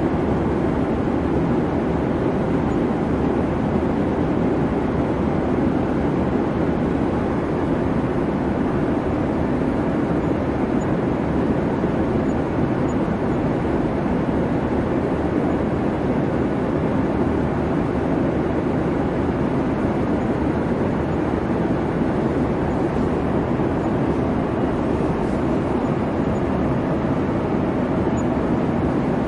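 Boeing 737 in flight: a steady, even drone of engines and rushing air that holds constant throughout, with no changes in pitch or level.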